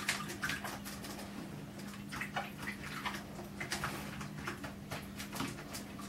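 Scattered light taps, clicks and small splashes as budgerigars step and dip around shallow plastic tubs of bath water, over a steady low hum.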